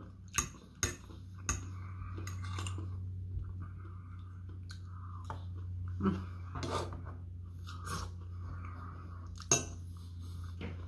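A metal fork clinks sharply against a dinner plate, a few times in the first couple of seconds and once loudly near the end, while a person chews food close to the microphone.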